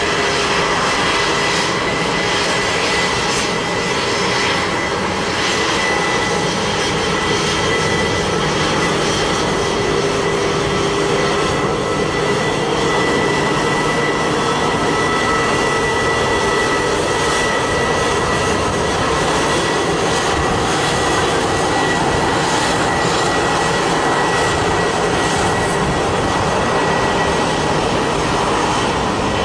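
Airbus A320-214's CFM56 jet engines running at steady low taxi power: an even rush of engine noise with several steady tones held over it, neither rising nor falling.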